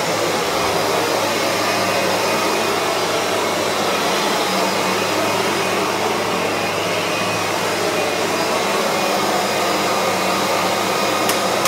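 Kirby G3 upright vacuum cleaner running steadily with its floor-buffing head fitted, buffing wax off a laminate floor.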